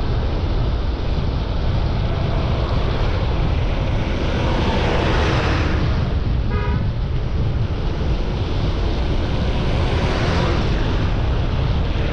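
Heavy wind rumble on the microphone from riding at speed on a road, with traffic noise swelling as vehicles pass twice. A short vehicle horn toot comes about six and a half seconds in.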